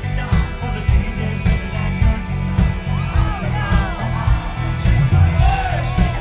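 A live country-rock band playing loud, with a heavy drum beat and bass. Voices sing and shout over it, rising and falling in pitch in the second half.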